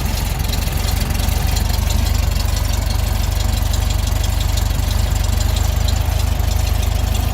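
1967 VW Beetle's air-cooled 1200 cc flat-four engine idling steadily, warmed up after a cold start and running smoothly.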